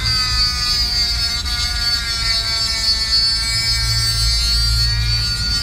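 Small handheld rotary tool spinning a thin abrasive cut-off disc at high speed against a stainless steel finger ring, cutting it off. It makes a steady high whine whose pitch sags slightly midway as the disc bears on the metal.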